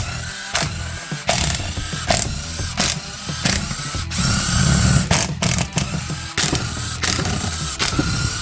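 Impact gun with a 10 mm socket spinning out the bolts of a mower transaxle case in several short runs, its motor whine rising and falling with each run.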